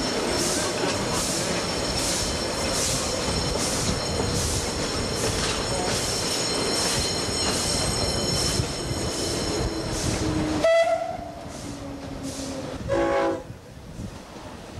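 Queensland Railways A10-class steam locomotive No. 6 running, heard loud from its footplate, with a steady beat about one and a half times a second. About two-thirds through the noise drops suddenly, a falling tone sounds, and near the end a short train horn blast comes as an electric suburban train passes alongside.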